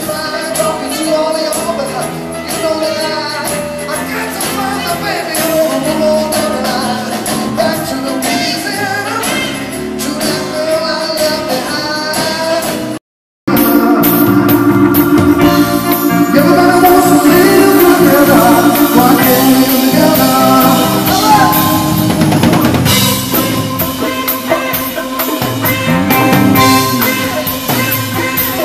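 Live band music with drums and singing. The sound drops out completely for about half a second near the middle, then the music comes back louder.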